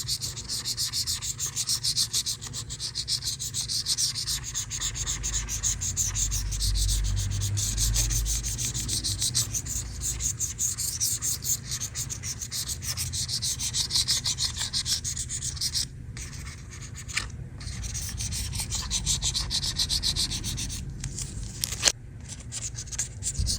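Rapid back-and-forth scrubbing and scraping of caked grime off an iPad's back and edges, pausing briefly a few times in the last third.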